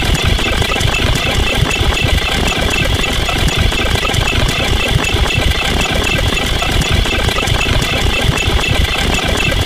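A loud, steady engine-like rumble with a fast rattling pulse.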